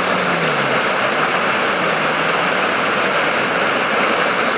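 Flooded creek water rushing over rocks in turbulent rapids, a loud, steady wash of churning water from a stream in spate after heavy rain. A faint low hum drops in pitch about half a second in.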